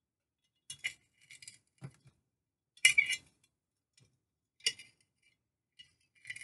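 Thin metal rod clinking and scraping against the glass neck of a demijohn bottle as it is worked inside, in a string of short, sharp clinks, the loudest about three seconds in.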